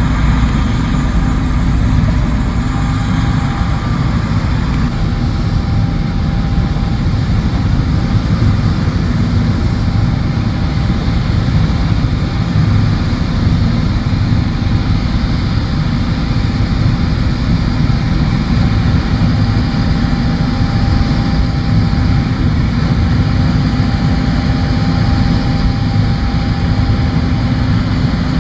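A John Deere combine running steadily while harvesting soybeans, its engine and threshing machinery making a constant low drone with a faint steady whine over it.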